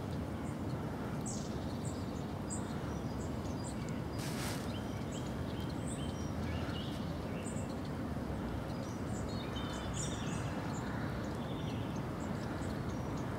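Small birds chirping and twittering on and off over a steady low rush of river water. A brief hiss cuts through about four and a half seconds in.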